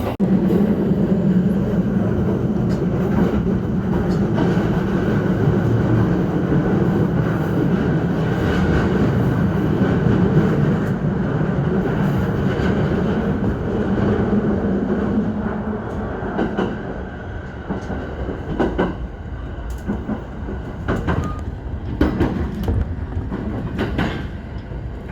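Train running on the rails, heard from inside the passenger carriage: a steady rolling rumble. About two-thirds of the way through it eases off, with scattered clacks and knocks, as the train slows on its approach to the station.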